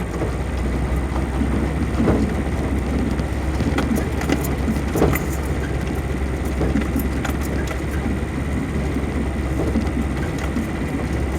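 Off-road vehicle driving over a rough dirt track: a steady low engine and road rumble with scattered rattles and knocks.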